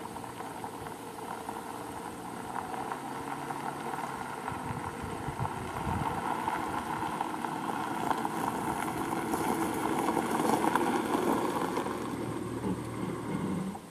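A car's engine running and its tyres rolling on a gravel driveway, growing louder as the car approaches, then cutting off abruptly near the end.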